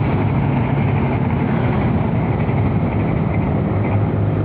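Argo Merbabu passenger train running past, a steady rumble of wheels on rail with a low hum under it.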